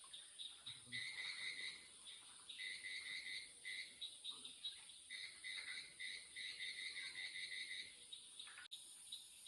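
Faint night chorus of frogs and crickets: a steady high insect trill with runs of short, repeated calls at several notes a second. The sound drops out for an instant near the end.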